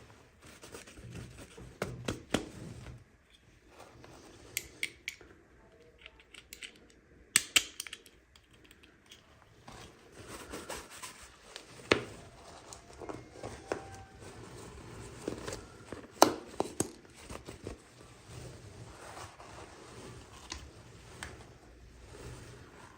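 Hands unpacking miniature toys: scattered sharp clicks and taps of plastic packaging, with rustling and scraping between, the loudest clicks about seven and sixteen seconds in.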